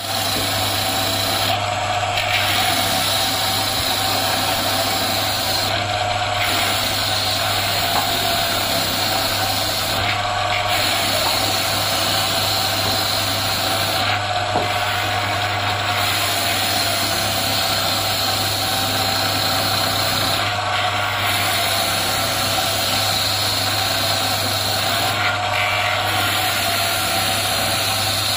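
Belt-driven electric cutting machine running steadily as its spinning cutter carves ring grooves into the wooden handle of a cricket bat, a steady motor hum under a cutting hiss. The hiss dips briefly about every four to five seconds.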